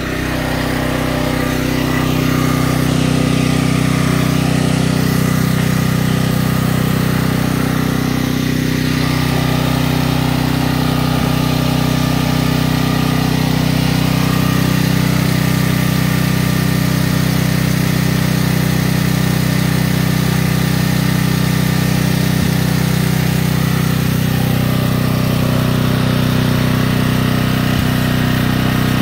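Small engine running steadily at one constant speed, an even, unchanging hum with no revving.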